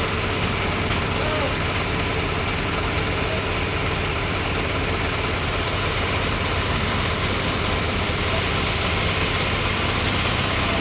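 An engine running steadily at idle, an even drone that does not change.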